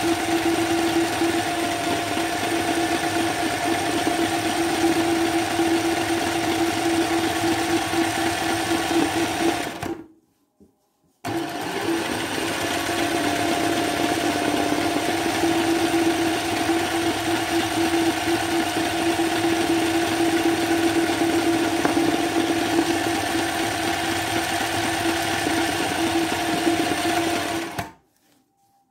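Sewing machine with a darning foot running fast and steady as it stitches free-motion embroidery into hooped fabric, a steady mechanical whir. It stops for about a second about ten seconds in, starts again, and stops shortly before the end.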